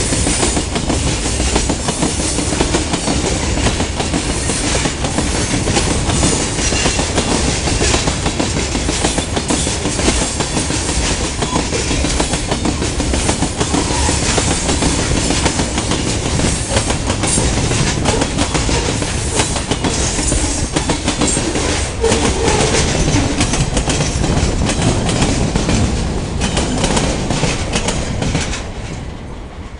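Freight train of tank cars rolling past close by: a steady rumble and rattle of steel wheels on rail, with a dense run of clicks. The sound drops away sharply near the end as the last car passes.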